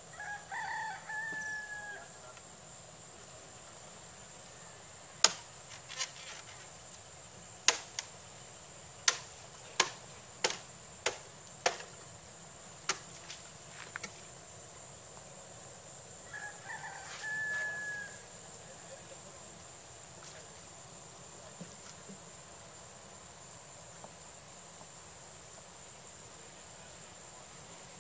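A rooster crows twice, about fifteen seconds apart. Between the crows come about a dozen sharp knocks, irregularly spaced, which are the loudest sounds.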